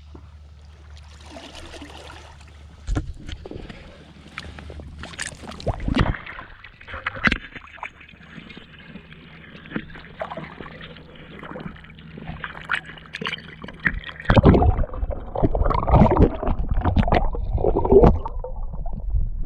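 Water sloshing and splashing around a landing net in shallow lake water as a large trout is released, with scattered sharp splashes. About three-quarters of the way through it turns into loud, muffled gurgling and rumbling of water with the camera underwater.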